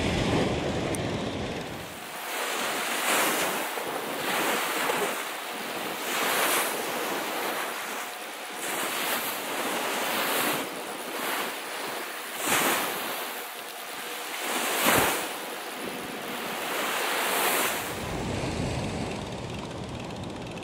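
Small surf breaking on a sandy beach and washing up the shore, swelling and fading in surges every couple of seconds. Wind rumbles on the microphone at the start and again near the end.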